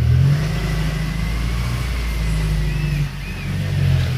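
Low, steady engine hum of a running motor, easing off about three seconds in, with two faint high chirps near the end.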